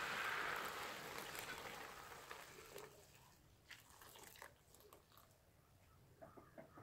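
Thickened milk pouring into a hot pan of grated carrots fried in ghee, a hiss that fades away over about three seconds. A few faint scrapes and taps of a wooden spatula stirring follow.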